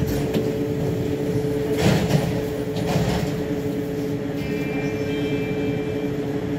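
Interior of a VAL208 automated metro car standing at a station: a steady electrical hum from the train's equipment, with a few short rustling bursts. A high-pitched signal sounds for under two seconds near the end.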